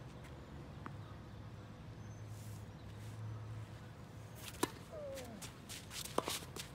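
Tennis serve: a racket (2014 Wilson Blade strung with Solinco Hyper G) strikes the ball with a single sharp crack about two-thirds of the way in. A second sharp ball strike follows about a second and a half later.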